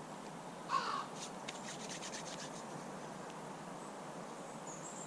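One harsh, caw-like bird call about three-quarters of a second in, followed by a quick run of about eight faint clicks over the next second and a half, over a low steady background hiss.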